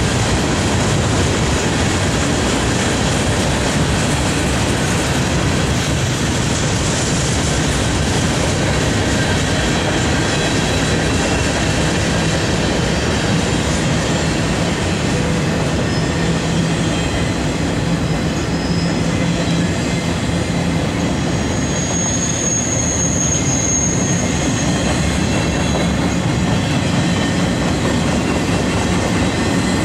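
Freight cars of a mixed freight train rolling past on steel wheels and rails, a steady loud noise. A high-pitched wheel squeal rises over it for about four seconds around two-thirds of the way through, with briefer, fainter squeals a few seconds before.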